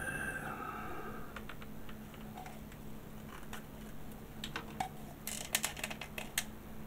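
Light clicks and taps of vinyl model kit parts being handled and pressed together by hand, with a quick run of clicks about five seconds in.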